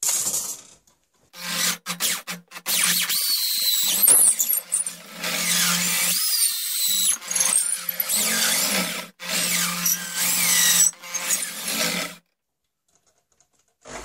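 Electric drill driving a long drill bit into a wooden longrifle stock, boring the ramrod hole. It runs in several bursts with short pauses: a steady motor hum under a high, wavering squeal. It stops about twelve seconds in, with one brief start near the end.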